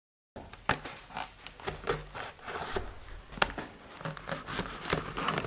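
Hands handling and opening a small SSD's retail packaging: irregular rubbing and scraping with scattered sharp clicks.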